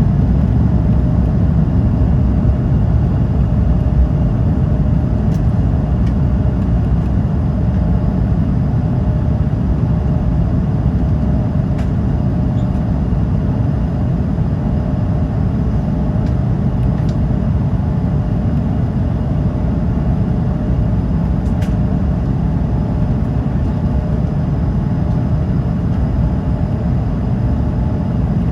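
Airbus A220-300's Pratt & Whitney PW1500G geared turbofans at takeoff thrust, heard inside the cabin as a loud, steady rush with a steady hum, easing very slightly toward the end.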